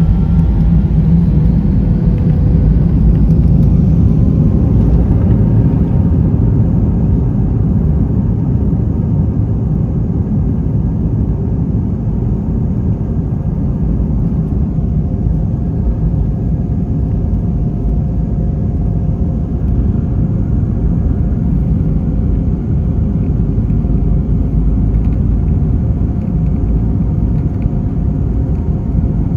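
Airliner jet engines and airflow heard as a steady low rumble, a little louder in the first few seconds, with faint steady engine tones above it.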